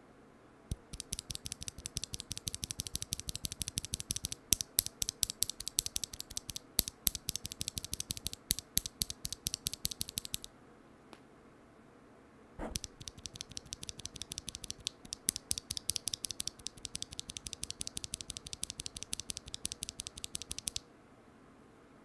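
A single loose Kinetic Labs Salmon tactile keyboard switch pressed rapidly between the fingers, clicking many times a second. The first run, for about ten seconds, is the switch stock and unlubed, with a scratchy edge. After a short pause a second run comes from a lubed switch, with less of that scratchiness.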